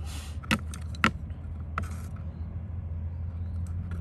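A few light clicks and a short rustle as a small plant pot and tweezers are handled on a work table, over a steady low hum.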